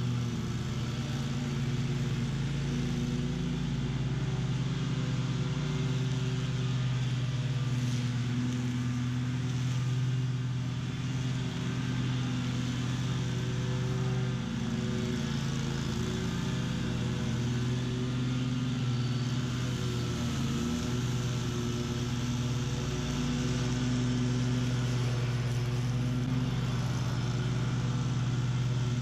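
BOB-CAT QuickCat 36-inch stand-on mower running steadily at mowing speed, its engine's hum holding an even pitch with small dips in level as the deck cuts through tall, thick weeds.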